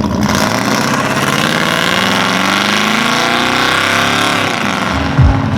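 Pickup truck's engine pulling away and accelerating, its pitch climbing steadily and then dropping off about four seconds in. A couple of deep thumps come just before the end.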